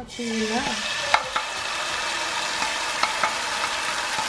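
Oil in a hot frying pan, sizzling steadily as a banh xeo starts to fry. The sizzle starts suddenly and carries a few light clicks, like a utensil tapping the pan.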